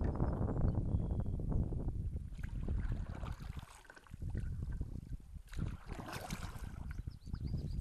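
Kayak paddling on a river: wind rumbling on the microphone, with the paddle blades splashing into the water about two and a half seconds in and again around six seconds.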